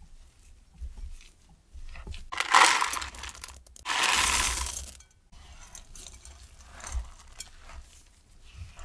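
Chocolate chips poured into a mixing bowl in two pours of about a second each, the first the louder, with softer handling and tapping sounds around them.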